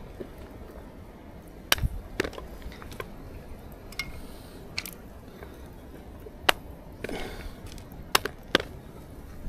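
Scattered sharp clicks and taps of someone eating, about seven over several seconds, with chewing and the handling of food and tableware.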